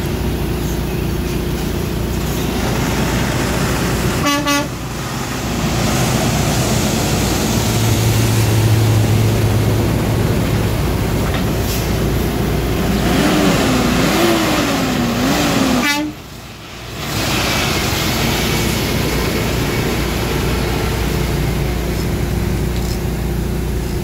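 Semi-truck diesel engines running as tractor-trailers pull out past at close range, with a brief truck horn toot about four seconds in.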